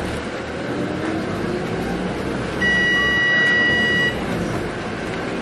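Scania K280UB bus running, its 9.3-litre five-cylinder engine and road noise heard from inside the cabin. About halfway through, a steady electronic beep sounds for about a second and a half.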